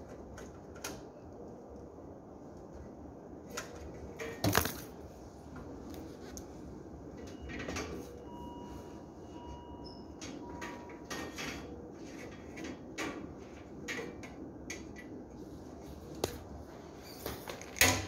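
Scattered clicks and knocks of hands working plastic wire connectors and fridge panel parts, and of the camera being handled, over a low steady hum. The loudest knocks come about four and a half seconds in and near the end.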